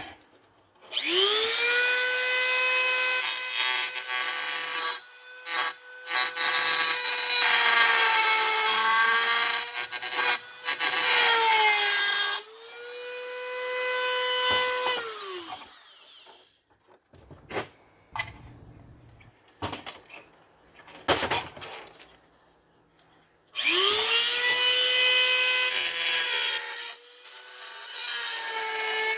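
Die grinder spinning up to a steady high whine and grinding the metal exhaust pipe pieces, its pitch wavering under load, then winding down about 15 seconds in. After a gap of light knocks and handling noises, it spins up and grinds again about 23 seconds in.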